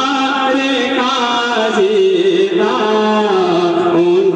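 A naat, an Islamic devotional poem, sung in long held notes that bend and waver in pitch.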